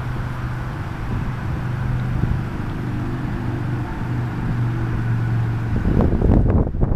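A vehicle engine idling steadily as a low, even hum. Near the end, wind buffets the microphone.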